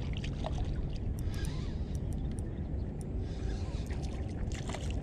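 Wind buffeting the microphone as a steady low rumble, with small splashes and scattered ticks as a hooked fish thrashes at the water's surface on an ultralight spinning rod.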